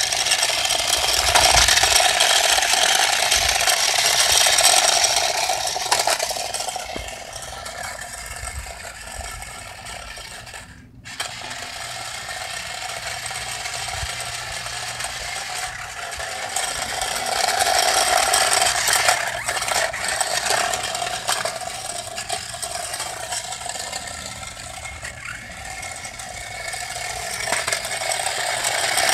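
Toy-grade Tyco RC Lightning McQueen car driving over concrete: its small electric gear motor and plastic wheels run steadily, louder when the car is close and fainter as it moves farther off. The sound cuts out for an instant about a third of the way through.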